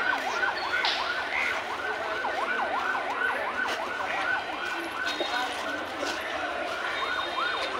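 Electronic toy siren sounding a fast warble, its pitch falling and rising about three to four times a second.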